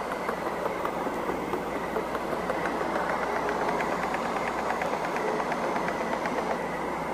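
Steady engine-like mechanical running noise with a dense rattle of small, rapid clicks and a faint high steady tone.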